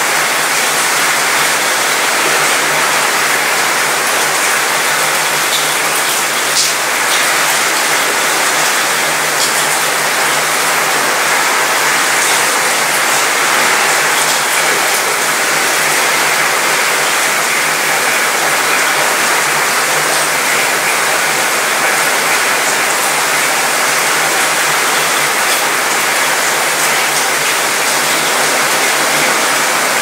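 Gentle rain shower falling steadily on a cruise ship's mostly metal balcony and railing, a dense patter of drops that rattles around the metal.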